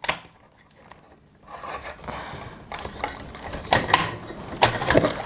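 Parts of a Threezero DLX Jetfire collectible figure being handled and pressed into place: quiet at first, then rustling with several sharp clicks, the clearest about four and five seconds in.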